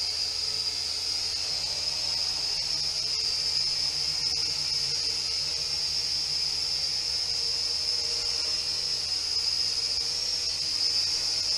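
Small quadcopter drone with guarded propellers running just above the floor, its motors giving a steady high-pitched whine over a low hum.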